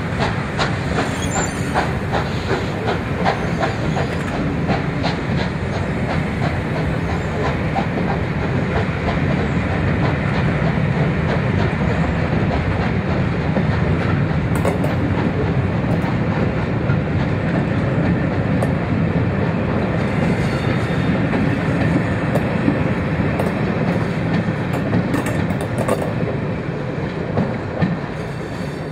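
Steam-hauled train behind a Britannia class 4-6-2 locomotive passing at speed: a loud, steady rush of running wheels clicking over the rail joints.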